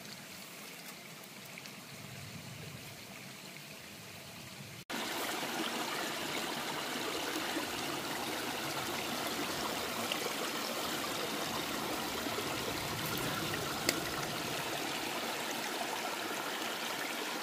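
Faint steady background hiss, then a cut about five seconds in to a small rocky stream running steadily over stones, clearly louder.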